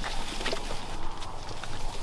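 Footsteps and rustling of people walking on a forest trail: irregular scuffs and light crunches, with a brief higher-pitched squeak about half a second in.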